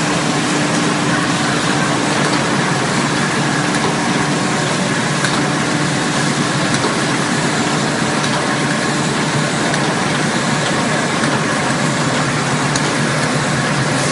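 Fully automatic soft-pack facial tissue packaging machine running with its conveyor: a steady, dense mechanical noise with faint clicks scattered through it.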